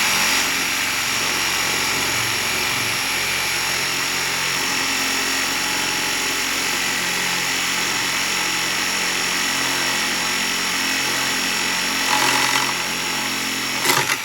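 Power tool running steadily with a high whine and a dense hiss as it cuts through the metal hydraulic control lever of a compact tractor, stopping right at the end.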